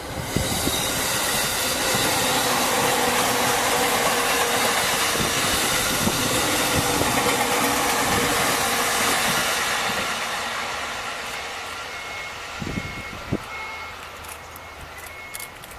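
Electric commuter train passing close by: a loud, steady rush of wheels and air with low clacks of wheels over rail joints, which fades away over the last several seconds as the train recedes.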